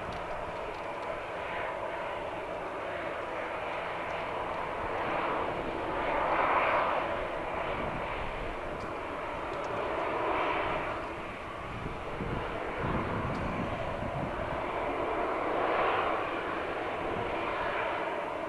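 Jet engines of an Airbus A321 idling while the aircraft stands still on the runway: a steady rushing whine that swells a few times.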